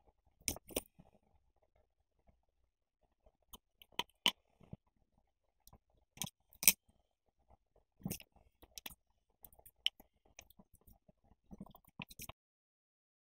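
Hands handling paper: scattered short crinkles, rustles and taps with quiet gaps between, as glued paper strips are pressed onto a card sheet and the sheet is turned and slid on the table.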